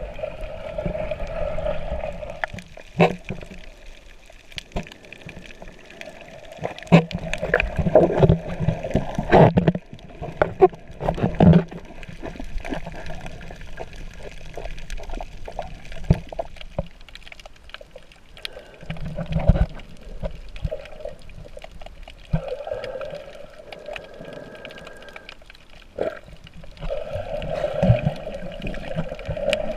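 Water sloshing and gurgling, with scattered knocks and thumps, the loudest of them about seven to twelve seconds in.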